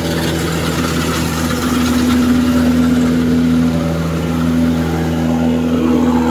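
Kubota DC-105X rice combine harvester running while it cuts rice, heard up close: a loud, steady diesel engine hum that holds one pitch.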